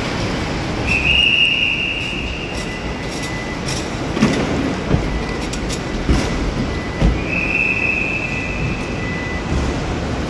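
Airport luggage trolleys rolling and rattling over pavement against a steady hum of curbside traffic, with a few knocks from the trolleys. Twice a long, steady, high-pitched squeal sounds for about two seconds, about a second in and again near the end.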